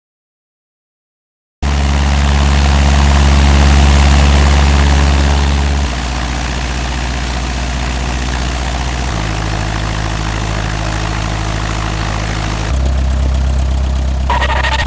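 After a short silence, a loud, steady, engine-like droning hum, deep and full of overtones. It shifts pitch abruptly three times, growing louder again near the end.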